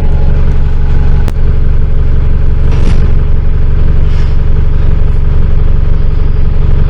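Loud, steady low drone of a road vehicle's engine and running noise, with one sharp click a little over a second in.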